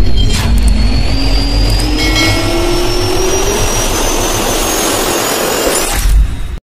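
Jet engine spool-up sound effect: a loud rumble with a whine rising steadily in pitch, cutting off abruptly about six and a half seconds in.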